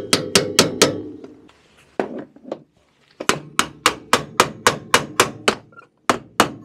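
Repeated sharp metal-on-metal hammer strikes on the threaded jam nut of a coilover shock, tapping it tight against the spring preload collar. A quick run of blows comes first, then two single strikes, then steady runs of about four blows a second, each with a brief ring.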